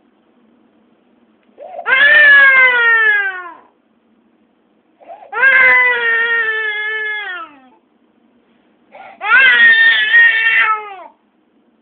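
Baby crying in three long wails a couple of seconds apart, each sliding down in pitch as it fades.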